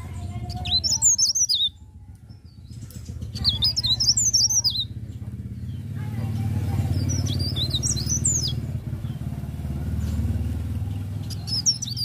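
Caged blerengan songbird chirping in short bursts of quick, sweeping high notes, four phrases a few seconds apart. Under it runs a steady low rumble that swells in the middle and fades near the end.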